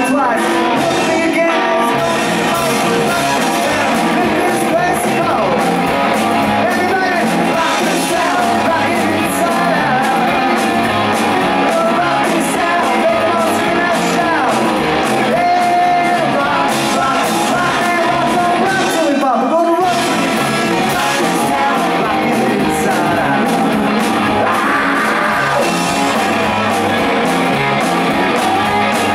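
Live rock band playing loudly: electric guitars, bass guitar and drum kit, with a voice singing. The music drops out for a moment about two-thirds of the way through, then carries on.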